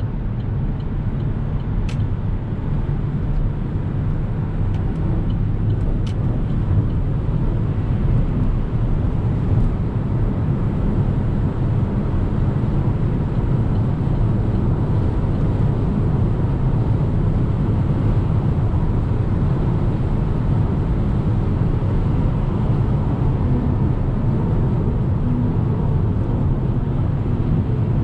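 Steady low rumble of tyre and wind noise inside the cabin of an Opel Corsa-e electric car at Autobahn speed, growing a little louder as the car speeds up.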